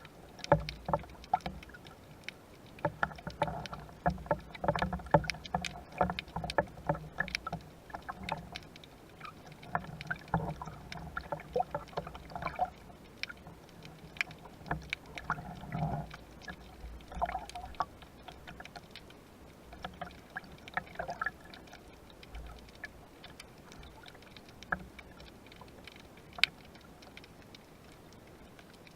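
Sea water sloshing and moving, with many irregular sharp clicks and knocks, busiest in the first half and sparser after about sixteen seconds in.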